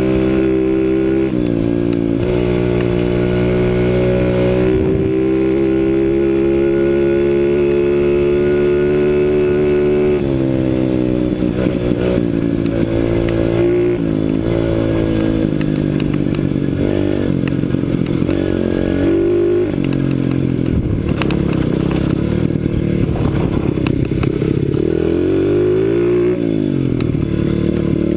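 2008 CRZ 125 Pro pit bike's single-cylinder engine under way on a dirt ride. It holds steady revs for the first ten seconds or so, then revs up and drops off again and again, with one deep drop and climb near the end.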